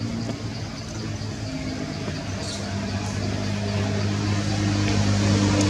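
A motor engine running with a steady low hum that grows louder through the second half.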